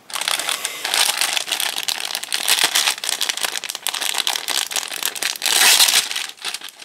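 Thin clear plastic packaging bags crinkling and rustling as hands handle and pull apart bagged knit beanies. The crackling is dense and continuous, with its loudest burst about five and a half seconds in.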